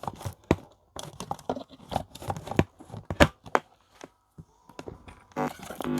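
Clicks, knocks and rustling as a power cable is handled and plugged into a Zebronics S38 speaker, followed near the end by a short pitched electronic tone.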